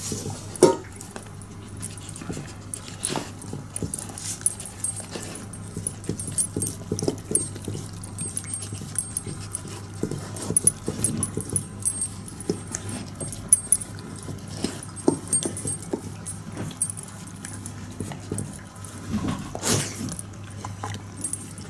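A labradoodle eating from and licking a stainless-steel dog bowl: irregular smacking, chewing and licking clicks, with the bowl clattering louder near the end as it is licked clean, over a low steady hum.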